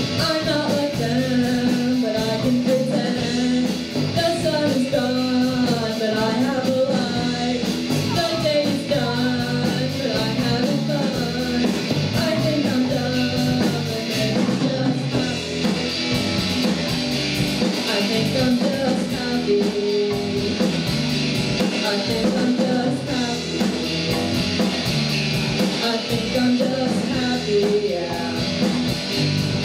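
Live rock band playing: electric guitar, bass guitar and drum kit, with a lead vocal sung over them, heard from the audience in the room.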